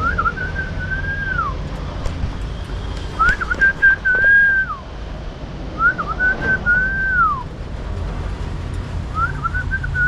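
A clear whistled phrase repeated four times, about three seconds apart: each one starts with a quick wavering flutter, holds a steady note, then slides down at the end.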